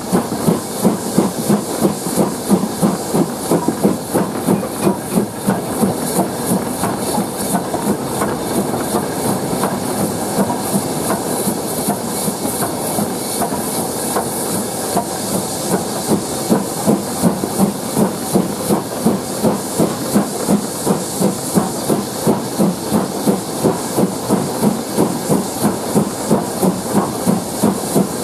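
BR Standard 4MT 2-6-4T steam tank engine working steam on the climb, seen from its footplate: even exhaust beats a little over two a second over a steady hiss of steam. The beats are weaker for a few seconds in the middle.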